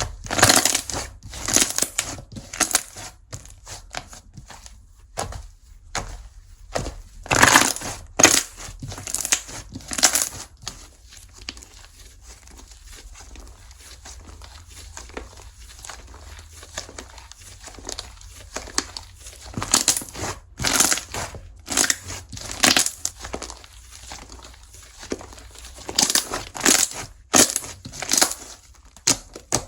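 Slime being squeezed, pressed and stretched by hand, giving clusters of crackling, popping clicks with quieter stretches in between.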